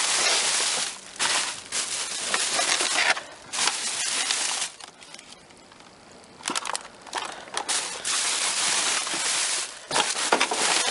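Plastic bags and packaging rustling and crinkling in bursts as trash is rummaged through and shifted in a dumpster, with scattered sharp clicks and knocks; it goes quieter for a second or two about midway.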